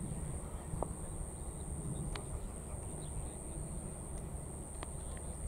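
Outdoor background noise: a low rumble with a steady high-pitched whine and a few faint ticks.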